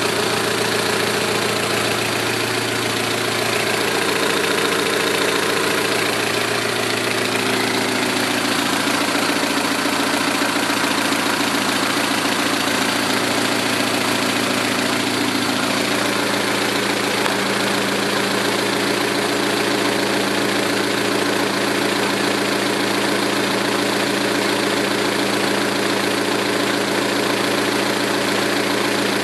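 Saturn ION Redline's supercharged LSJ four-cylinder idling with a lifter tick, which the owner puts down to stock hydraulic lifters running with GMR aftermarket cams. The idle shifts a little in the first several seconds, then holds steady.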